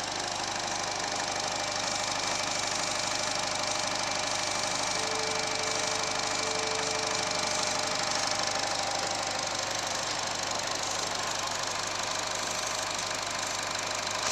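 A 2019 Holden Trax's 1.4-litre turbocharged four-cylinder petrol engine idling steadily, heard from above the open engine bay.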